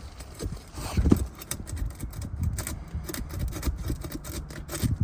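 A roofing pry tool scraping and knocking under asphalt shingles to break their seal: a run of irregular scrapes and clicks with low thuds, loudest about a second in. The shingle is incredibly sealed down.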